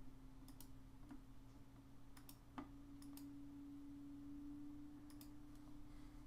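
Faint computer mouse clicks, several in quick pairs, over a steady low hum that steps up slightly in pitch about two and a half seconds in.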